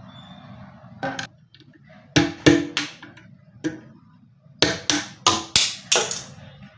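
Sharp knocks on a wooden cabinet, about ten strikes: one, then a quick run of three, one more, then a run of five near the end. They come as the old drawer lock is being knocked out.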